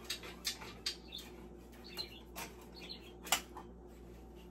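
Scattered light clicks and taps of small objects being handled on a kitchen counter, with a few faint high squeaks in between.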